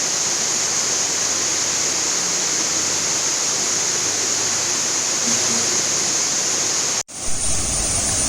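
Steady rush of a small waterfall. The sound drops out abruptly for a moment about seven seconds in, then the same rushing carries on.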